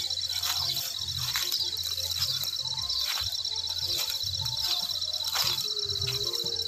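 Insects trilling steadily at a high pitch, with footsteps on a wet dirt path landing about once a second.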